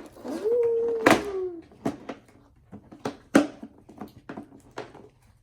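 A child's drawn-out "ooh", then a string of short, sharp, irregular clicks and pops from glittery homemade slime being squeezed, poked and pulled by hand.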